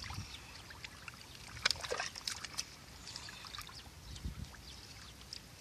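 Hands groping through shallow muddy water, making scattered small splashes, squelches and trickles, with a sharper splash a little under two seconds in.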